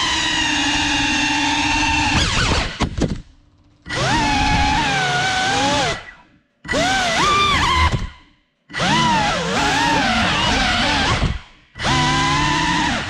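Geprc Cinelog 35 cinewhoop drone's brushless motors and ducted propellers whining, the pitch sliding up and down with the throttle. The sound cuts out almost completely four times for under a second each, where the throttle is chopped, then spins straight back up.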